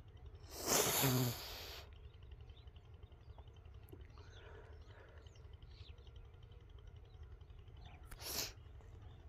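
Breath noise close to the microphone: one loud puff of breath starting about half a second in and lasting about a second, then a shorter one near the end, over a low steady hum.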